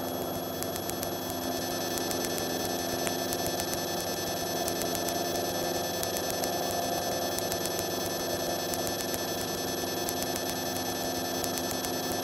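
Piper PA-38 Tomahawk's four-cylinder Lycoming engine and propeller droning steadily in the cockpit, with a fast-repeating high electronic chirping over it.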